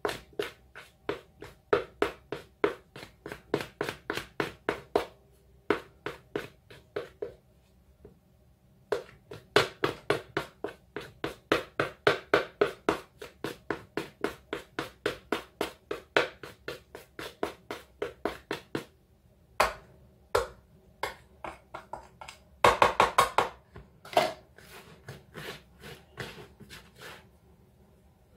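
A knife cutting margarine into small pieces in a mixing bowl of flour, its blade tapping the bowl about three times a second in a steady rhythm. There is a short break about a third of the way through, sparser taps later on, and a quick flurry of taps a little before the end.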